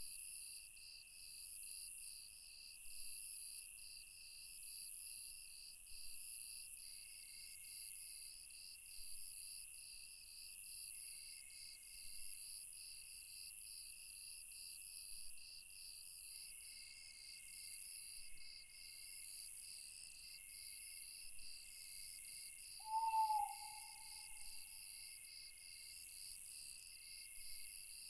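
Night insect chorus of crickets, a steady high trilling that pulses about twice a second. A single short owl hoot, slightly falling in pitch, stands out about three-quarters of the way through as the loudest sound.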